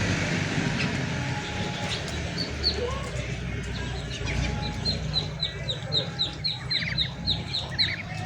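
A bird calling: a quick run of short, high chirps, about four a second, each dropping in pitch, with a couple of single chirps before it, over a steady low hum.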